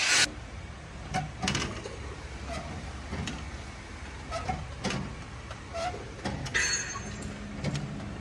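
Scattered metallic clicks and knocks, roughly one a second, as the newly fitted foot-throttle pedal and its linkage on a Preet 6049 tractor are pressed and worked, over a low steady hum, with a brief hiss a little past the middle.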